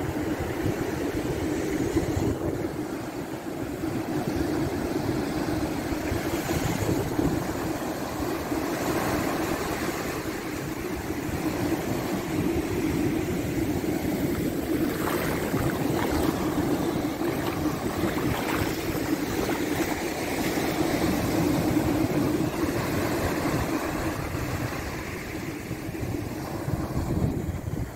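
Sea surf washing up the sand, with wind rumbling on the microphone and a steady low hum beneath.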